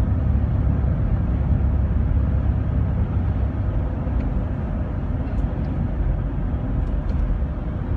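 Steady low rumble of a van's engine and tyres heard from inside the cabin while driving at road speed.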